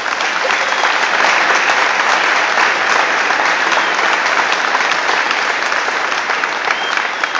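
Audience applauding, a dense steady clapping from a roomful of people.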